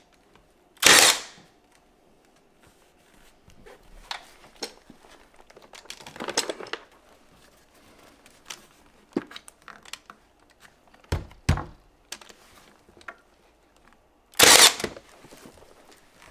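Pneumatic nail gun firing twice, about a second in and again near the end, each a sharp bang with a short hiss of air, as interior window trim is nailed up. Between the shots come small knocks, clicks and two quick low thumps from handling the trim.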